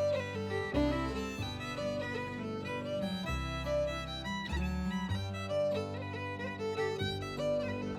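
Music: a fiddle playing a tune over a sustained bass accompaniment.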